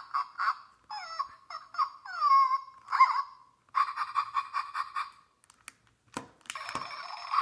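Electronic puppy yips and whines from a Zhu Zhu Puppies robotic toy dog's speaker. They come in short rapid runs, with a falling whine in the middle. A few sharp clicks come near the end.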